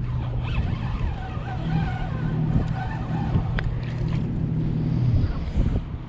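Steady low engine drone with a few even tones, like a motor running at constant speed, with a single sharp click about three and a half seconds in.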